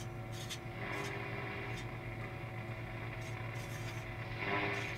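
Eddystone 840A valve shortwave receiver's loudspeaker output as the tuning knob is turned with no antenna connected: band noise and faint steady tones over a steady low hum, broken by scratchy crackles, with a brief louder swell of noise near the end.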